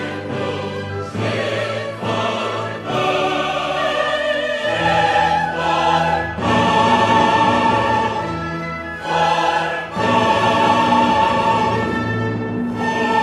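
Background music: classical choral singing over orchestra, voices holding long notes that change every second or two.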